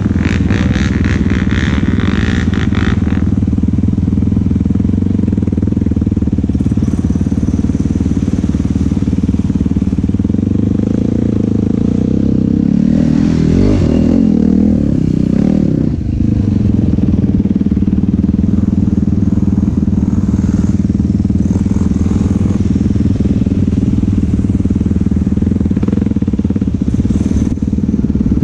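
ATV engine running steadily under riding, with the revs rising and falling about halfway through. A rattling clatter sounds in the first few seconds.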